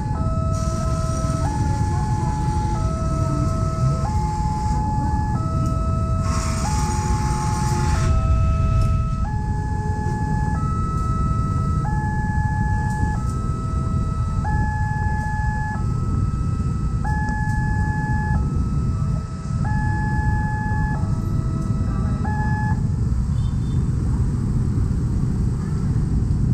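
Railway level-crossing warning alarm sounding an electronic two-tone high-low signal, switching about every half second at first and then more slowly, a second per tone, before it stops a few seconds before the end as the crossing clears. Underneath runs a steady low rumble of traffic and train, with a brief hiss about seven seconds in.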